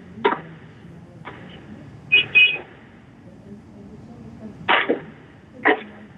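Short knocks and noisy bursts from fidgeting picked up by open microphones, heard through narrow-band conference-call audio over a low hiss. About five bursts, each a fraction of a second; the pair about two seconds in carries a brief high tone.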